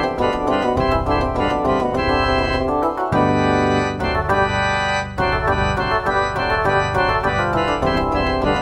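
Organ-toned keyboard music playing chords with a quick pulse of notes. About three seconds in it settles into held chords for about two seconds, then the quick pulse resumes.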